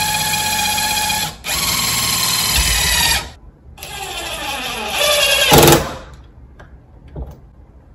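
Cordless DeWalt drill's motor whining steadily as it drives a screw into a wooden block, dipping briefly once, then stopping. It starts again with a rising whine, gives a short louder burst, and stops a second or two before the end.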